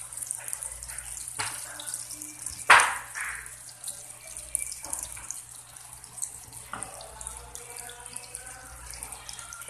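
Biscuit batter frying in hot oil in a pan: a steady crackling sizzle, with a sharp clack about three seconds in and a few smaller ones later.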